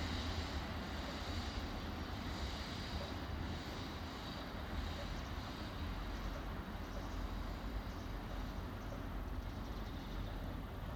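Train running on the tracks: a steady low rumble of wheels on rails, easing off slightly toward the end.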